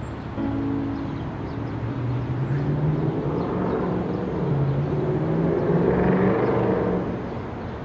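Street traffic, with a vehicle engine passing. It swells to its loudest about six seconds in and then fades.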